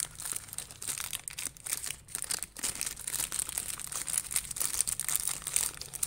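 Plastic bag crinkling and rustling as it is handled and opened: a dense, irregular run of crackles.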